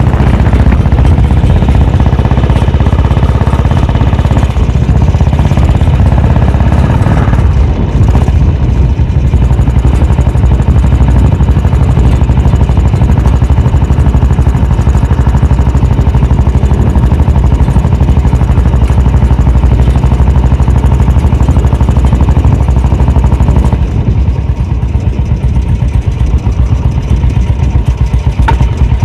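Motorcycle's diesel engine converted to run on petrol, running loudly and steadily. From about 24 s in it settles into a slower idle with separate, evenly spaced firing pulses. The owner says this engine still often suffers detonation, perhaps from wrong ignition timing or unsuitable fuel.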